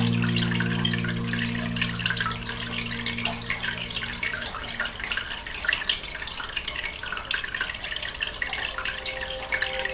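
Aquarium water bubbling and trickling steadily, under soft ambient music: long held low notes fade out over the first few seconds and a new chord comes in near the end.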